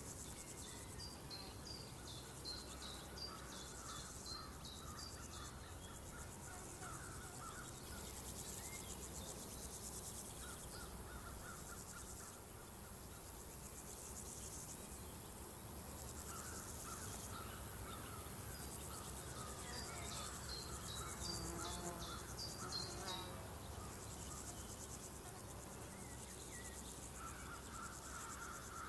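Countryside ambience of insects trilling steadily, with birds chirping in runs of quick high notes near the start and again later on. A shrill high insect buzz comes in about eight seconds in and stops about eleven seconds later.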